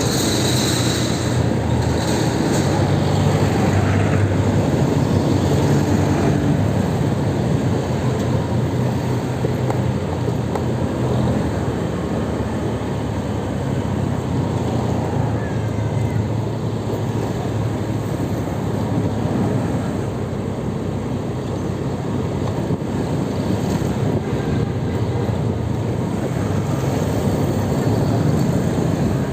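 Steady road vehicle noise, an engine's low hum under tyre and traffic noise, continuous and even throughout.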